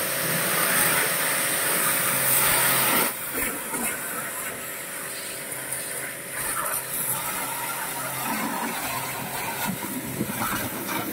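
Shakti S5 1900 W high-pressure washer spraying a jet of water against a car's side panel and wheel: a steady, strong hiss over a faint hum, dropping somewhat in level about three seconds in.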